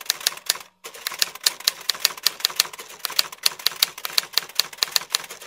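Sound effect of rapid typing clatter: sharp key strikes several a second, with a brief break a little under a second in, stopping abruptly at the end.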